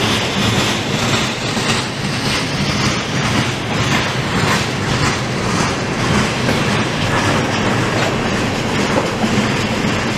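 Freight train tank cars rolling past at close range: a steady rumble of steel wheels on rail with clickety-clack over the rail joints.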